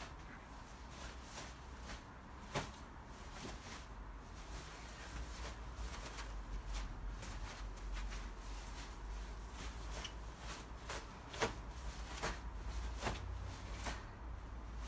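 Feet and clothing of a kung fu practitioner performing the Pak Mei Dragon form: irregular taps, stamps and rustling snaps, with a sharper one about two and a half seconds in and several more near the end, over a steady low hum.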